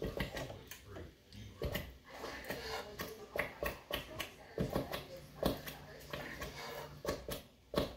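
Spoons clinking, knocking and scraping in a metal cooking pot of beans as it is stirred, with short mouth sounds as a spoonful is tasted, in a series of irregular clicks and knocks.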